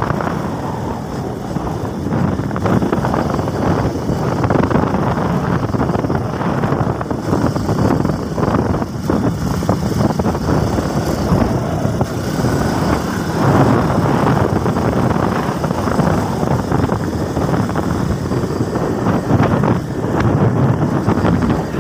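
Wind buffeting the microphone on a moving motorcycle, with the bike's engine running underneath in a steady rush of noise.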